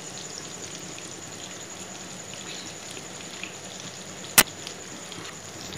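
Oil sizzling steadily as whole masala-coated fish shallow-fry in a nonstick pan, with one sharp pop about four seconds in.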